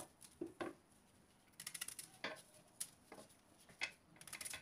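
Knife cutting an onion held in the hand into coarse chunks: irregular short, crisp cuts, some in quick runs, as the blade goes through the onion and pieces drop into a steel pressure cooker of mutton.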